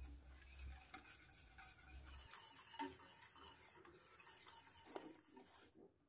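Faint stirring with a wire whisk in a stainless steel saucepan, the wires scraping and lightly clicking against the pan, as a pastry cream mixture of milk, egg yolks and cornstarch heats and thickens.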